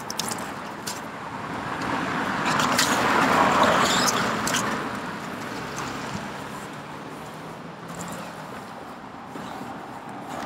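A car passing by on the road over the bridge, its tyre and engine noise rising to a peak about three to four seconds in and then fading away.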